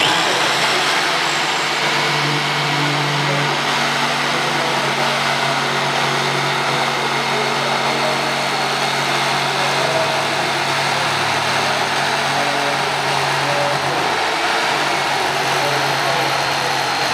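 Hyundai J800 corded jigsaw running steadily while its blade cuts a curve through a 20 mm wooden board: a continuous motor hum under the rasp of the reciprocating blade in the wood.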